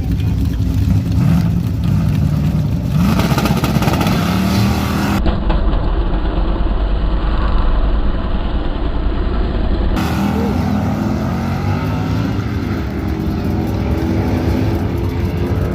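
Car engines running and revving, the pitch rising and falling several times.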